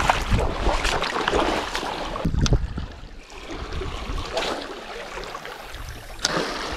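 Shallow sea water splashing and sloshing around boots as a person wades, with gusts of wind buffeting the microphone.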